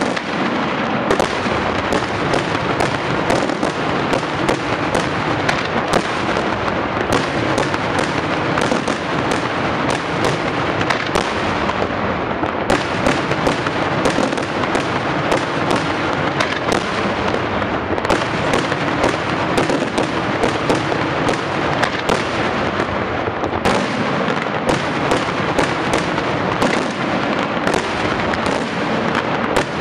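Daytime fireworks barrage: shells launching and bursting overhead in a dense, unbroken string of loud bangs, several a second.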